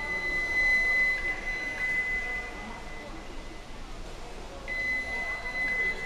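Water polo game buzzer sounding two long, steady high electronic tones at the same pitch, the second starting about four and a half seconds in.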